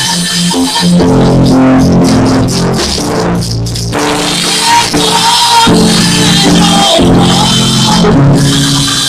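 Loud band music with a drum kit and guitar, played without pause.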